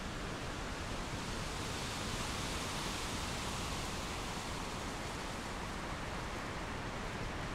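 Thunderstorm noise: a steady rushing hiss of wind and rain, swelling slightly a few seconds in.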